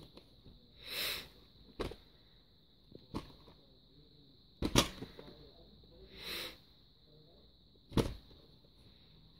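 Handling noise from a VHS tape in its cardboard sleeve being turned over in the hands: a few sharp clicks and knocks, the loudest a little before the middle and near the end, between softer scraping and rustling.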